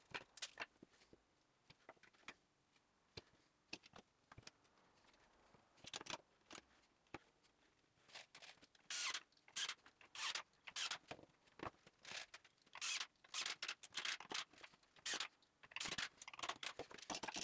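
Quiet handling sounds of gluing up and clamping a small melamine drawer box on a workbench: short scrapes and rattles, sparse at first and coming thick and fast in the second half, as parts are fitted and steel bar clamps are slid into place and tightened.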